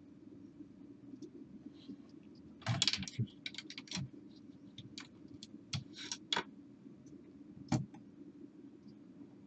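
Small sharp clicks and taps of plastic and metal parts as the pickup mechanism of a Pioneer PD-Z81M CD player is handled and worked on with a small tool. There is a short cluster about three seconds in, a run of scattered clicks over the next few seconds and one more near the end, over a faint steady low hum.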